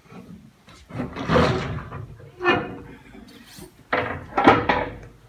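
Classroom chair scraping and knocking on the floor several times as a student gets up from his seat.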